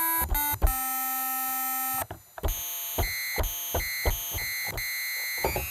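NES-style (Famicom) chiptune synth on an M5Stack, played one note at a time from a MIDI keyboard in its pseudo-triangle wave voice. A couple of notes step down in pitch, then one note is held for over a second, then a string of short notes follows.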